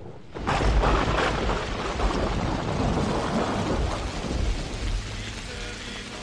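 Rain and thunder: a dense rushing hiss with low rumbling that starts suddenly about half a second in and slowly thins out. Sustained musical notes begin to come in near the end.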